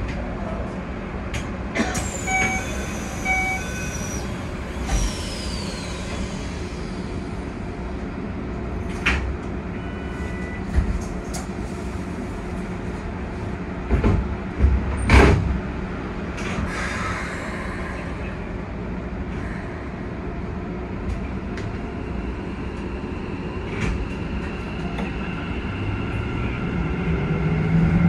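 Keikyu 1000 series electric train standing at a platform, heard from the driver's cab: a steady hum with scattered clicks and thumps, a few short beeps and a couple of brief falling tones. Near the end the Mitsubishi VVVF inverter starts a rising whine and the sound grows louder as the train pulls away.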